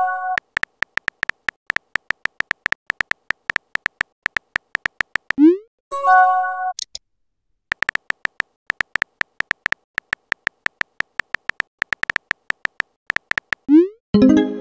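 Texting-app sound effects: rapid keyboard tap clicks while a message is typed, broken twice by a short rising whoosh and a brief chime-like alert tone as messages are sent and received, about five seconds in and again near the end.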